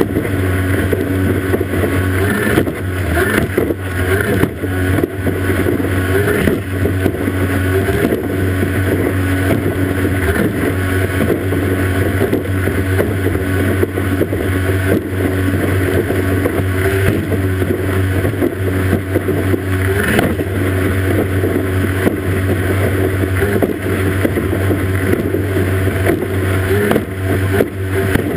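Racing powerboat's outboard engine running steadily at high speed, under the rush of spray and water off the hull.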